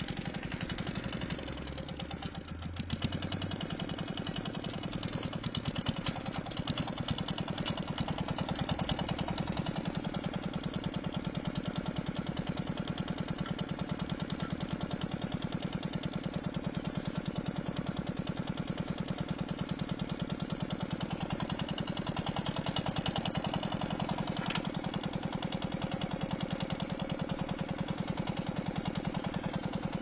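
Two-wheel walking tractor's single-cylinder diesel engine running steadily with a rapid, even beat while the tractor is driven slowly into place.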